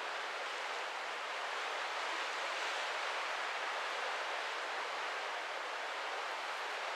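Steady rushing hiss of sea water streaming past the hull of a moving cruise ship, even throughout with no distinct events.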